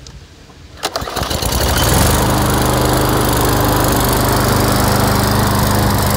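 Husqvarna LC 140 S lawn mower's four-stroke engine starting: a sharp pull about a second in, the engine catches at once and rises to a steady, loud run.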